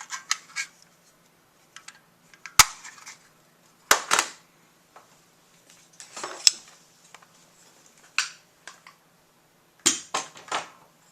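Handling noise of hard objects: a scatter of sharp clicks, knocks and short clatters, with the louder ones about two and a half, four, six and a half and ten seconds in.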